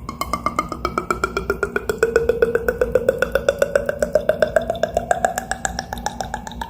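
Beatboxed water-drop sound effect: rapid mouth clicks, about eight a second, with a hollow pitch that sinks over the first two seconds and then slowly rises.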